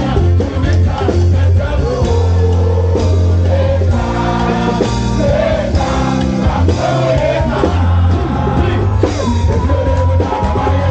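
Live band playing a calypso, with a singer's voice over a steady, heavy bass line.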